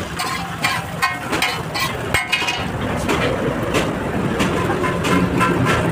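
Metal spatula scraping and clacking against a large flat iron griddle as shredded vegetables are stir-fried, in quick irregular strokes over a steady low rumble.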